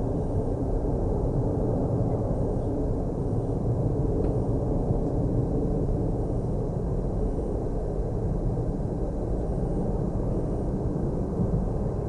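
Steady low rumble of jet aircraft engines, even and unchanging.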